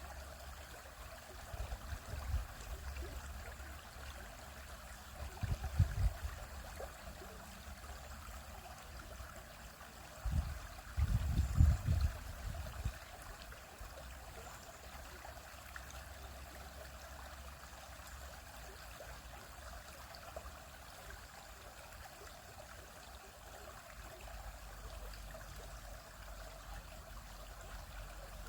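Stream water flowing and splashing steadily over rocks. Low rumbles come and go underneath, loudest around six seconds in and again from about ten to thirteen seconds in.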